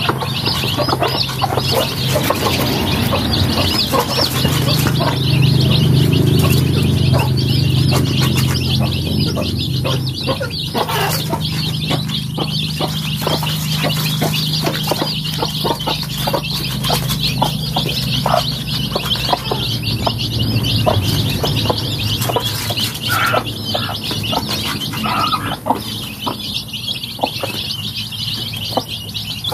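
A flock of young chicks cheeping continuously while they peck at feed, with many quick sharp taps mixed in. A low steady hum runs underneath, strongest through the first half.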